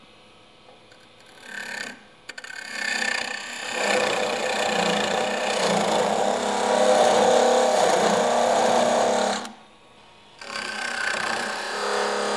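Parting tool cutting into a spinning wooden chair-leg blank on a lathe, sizing the spindle down to diameter with a Galbert caliper riding on the cut. A short cut about a second and a half in, a long cut of about seven seconds, a pause of about a second, then another cut near the end.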